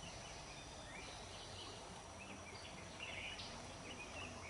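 Faint outdoor ambience: scattered short bird chirps over a steady high-pitched insect drone.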